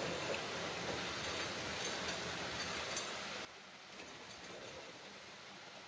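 Casters of a loaded HART 36-inch six-drawer rolling toolbox, built up as a welding cart, rolling across a concrete floor with a steady rolling noise. The noise cuts off suddenly about three and a half seconds in, leaving a faint hiss.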